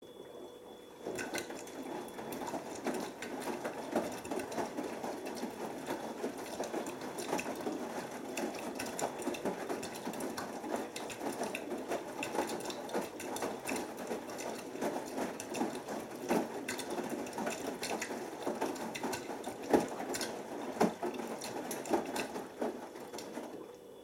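Beko WMB81445L washing machine's drum tumbling wet laundry during the heating stage of a Cotton 60°C wash: a steady churn of motor, sloshing and knocking. It starts about a second in and stops near the end.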